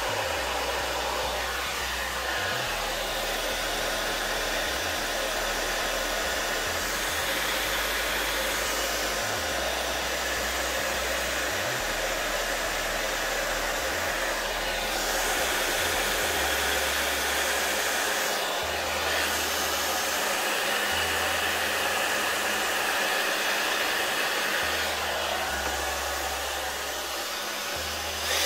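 Hair dryer on its low setting, running steadily as it blows across wet poured acrylic paint to push it around and bring up cells. The rush of air shifts slightly as the dryer is moved over the canvas.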